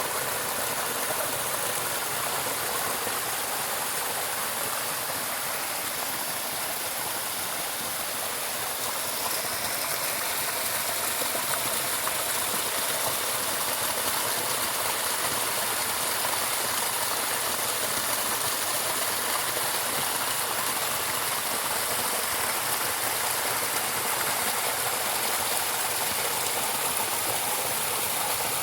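Running water rushing steadily, as of a stream or small waterfall, an even hiss with no change in level.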